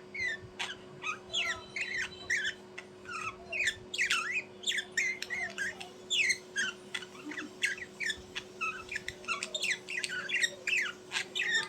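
Birds giving a rapid stream of short, squeaky chirps and squawks, several a second and often overlapping.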